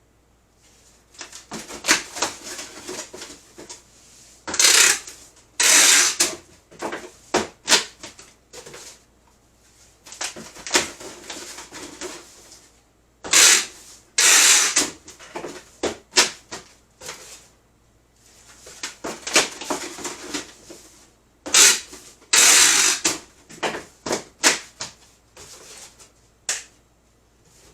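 Cardboard shipping boxes and packing materials being handled: irregular rustling, scraping and clicking, with a few longer hissy scrapes and many short knocks.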